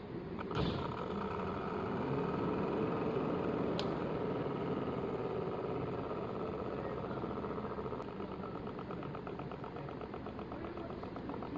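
A click, then a car air-conditioning blower fan motor running steadily, its sound swelling over the next couple of seconds, with a fine rapid pulsing creeping in later.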